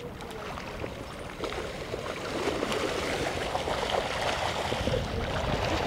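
Shallow river water rushing and splashing over rocks, churned by spawning lake sturgeon; it grows a little louder about two seconds in.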